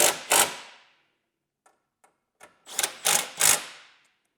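Power screwdriver driving screws home in two bursts about three seconds apart, each a rapid run of loud clicks.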